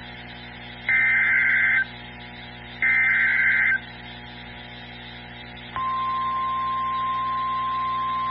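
Emergency Alert System SAME header: two harsh, buzzing data bursts about a second long, about a second apart. A few seconds later a steady single-pitch alert tone starts and holds. Together they announce the start of a new weather alert.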